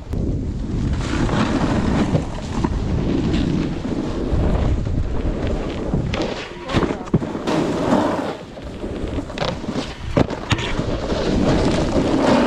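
Wind buffeting a helmet camera's microphone over the rough scrape of a snowboard sliding across snow, with a few sharp knocks.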